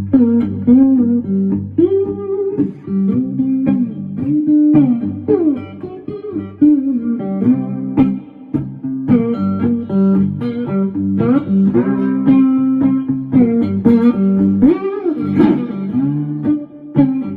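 Four-string cigar box guitar in G-D-G-G tuning, played with a steady low drone held under a picked melody on the upper strings, with notes bent and slid in pitch.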